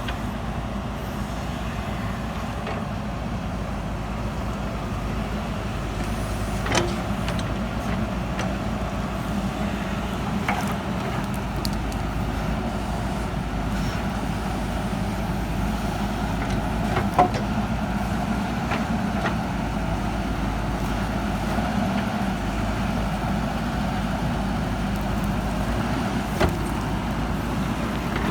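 JCB 3DX backhoe loader's diesel engine running steadily, with three short sharp knocks spread through.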